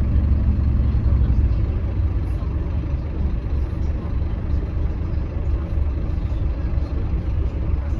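Scania K310UB city bus's rear-mounted five-cylinder diesel engine running, heard from inside the passenger cabin as a steady low rumble. The engine note eases slightly about a second and a half in.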